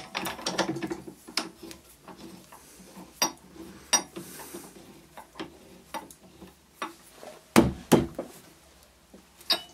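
Four-jaw lathe chuck being tightened with its T-handle key onto a wooden blank: scattered metallic clicks, scrapes and light knocks, with two louder knocks near the end.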